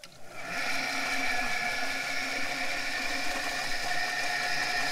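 Electric drum-style chicken plucker starting up and running, spinning birds against its rubber plucking fingers. It reaches full speed within about half a second, then holds a steady whine.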